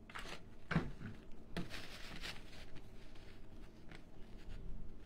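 Dry wicker wreath twigs and jute rope rustling and crackling as they are handled and pressed together while a rope handle is glued in. There are a handful of short, light crackles.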